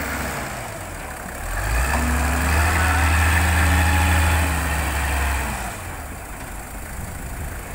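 TCM 45 wheel loader's diesel engine revving up under load as it lifts a full bucket of soil over a dump truck, holding high for a few seconds, then dropping back toward idle.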